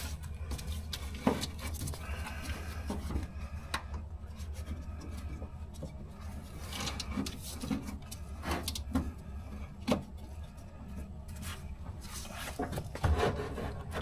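Scattered light knocks and rubbing of parts being handled and worked into place while fitting a fuel tank, over a low steady hum.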